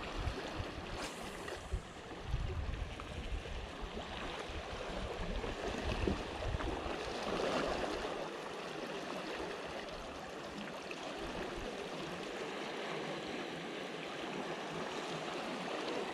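Small sea waves lapping and washing against shoreline rocks, a steady, even wash of water. There is a low rumble in the first half that dies away about halfway through.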